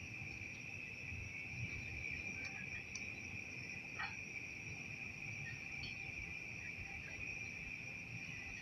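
Crickets trilling in a continuous, steady high-pitched chorus, with a faint click about four seconds in.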